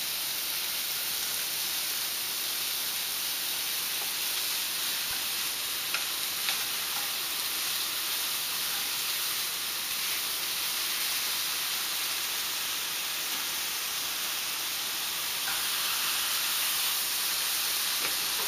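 Thin turkey cutlets and ground turkey patties sizzling steadily in two frying pans, with a few light clicks as the meat is turned with a fork.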